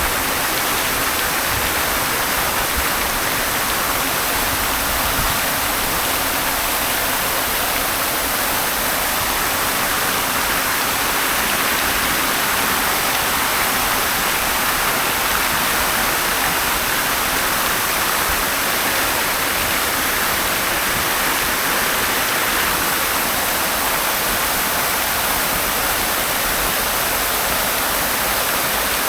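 Fountain water splashing and falling in a steady, unbroken rush.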